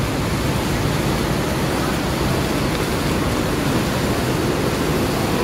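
Intercity coach rolling slowly into the terminal: a steady, even rush of engine and tyre noise on the wet ground, growing slightly louder as it comes closer.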